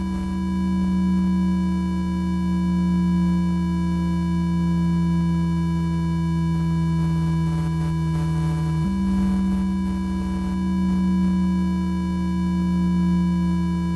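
dröne, a Max for Live drone synthesizer, playing a preset: a steady low drone of several sustained tones. The main low note steps up slightly about nine seconds in.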